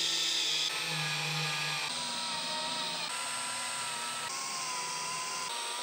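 Cordless drill/driver running steadily, driving screw-in metal dowels into a particleboard shelf side panel. Its motor whine shifts slightly in pitch every second or so.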